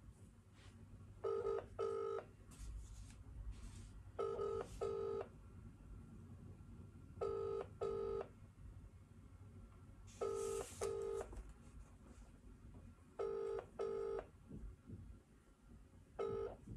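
British double-ring telephone ringback tone heard through a phone's loudspeaker while an outgoing call waits to be picked up: two short rings, then a pause of about two seconds, repeating about every three seconds.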